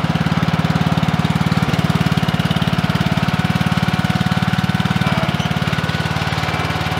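Engine of a small John Deere compactor roller running steadily with a fast, even pulsing beat as the roller drives along.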